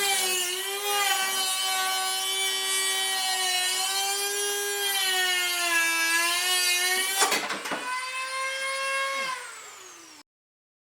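Handheld power tool running with a steady whine whose pitch dips and wavers under load. About seven seconds in there is a brief harsh burst, then the whine rises and falls away as the tool winds down, and the sound cuts off abruptly near the end.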